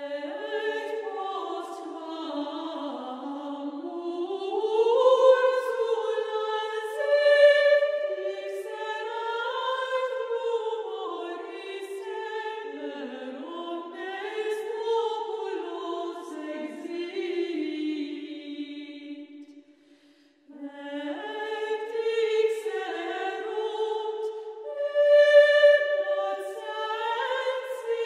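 Background music of slow, chant-like choral singing with long held notes, breaking off briefly about two-thirds of the way through.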